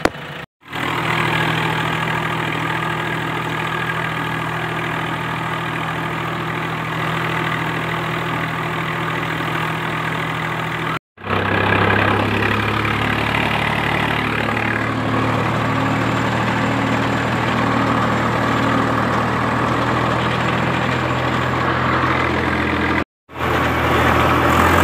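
Tractor diesel engine running steadily, heard close up from the driver's seat. The sound drops out briefly three times.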